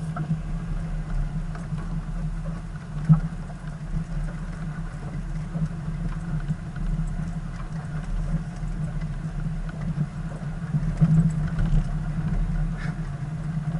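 Vehicle engine running steadily as it drives slowly over a rough dirt track, heard from inside the cabin as a constant low hum, with small knocks and rattles from bumps and a sharper knock about three seconds in.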